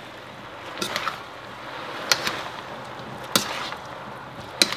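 A cooking utensil stirring chicken and peanuts in a frying pan, knocking against the pan four times about a second and a quarter apart, over a steady sizzle.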